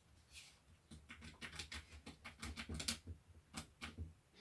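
Irregular light clicks and taps of small parts being handled, several a second, starting about a second in and stopping just before the end.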